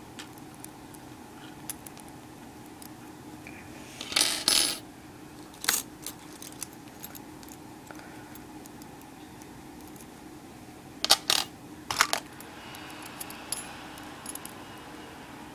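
Small metal puzzle pieces clinking and clattering against each other and onto a hard surface as the puzzles are pulled apart. The clinks come in a few sharp, ringing bursts: a cluster about four seconds in, one just before six seconds, and a group around eleven to twelve seconds, with lighter ticks in between.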